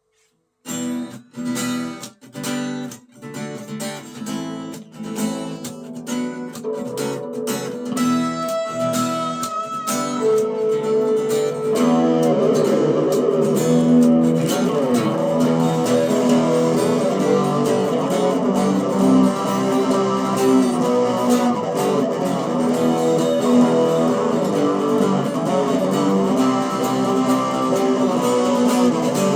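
Yamaha ERG121C electric guitar playing a rock song. It starts with short separated chord stabs, the strokes coming closer together, then settles into fuller continuous playing from about twelve seconds in.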